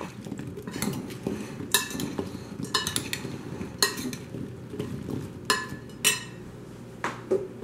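A metal spoon stirring oiled whole Brussels sprouts in a ceramic bowl. The sprouts tumble and rustle against each other, with a sharp clink of the spoon on the bowl about once a second. The stirring dies down near the end.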